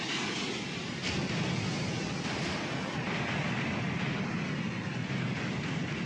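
Sea waves washing in: a steady rushing surf noise that swells and eases, a little louder from about a second in.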